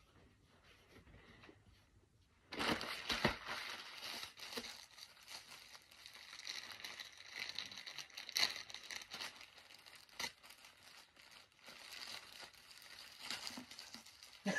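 White plastic poly bag crinkling and rustling as it is handled and pulled open, starting about two and a half seconds in after a near-silent start, in irregular crackly bursts.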